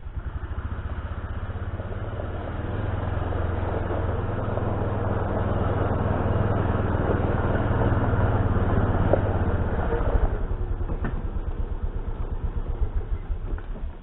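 Side-by-side utility vehicle's engine running as it drives up over gravel, getting louder as it approaches. About ten seconds in it drops to a slower idle, and the engine cuts off near the end.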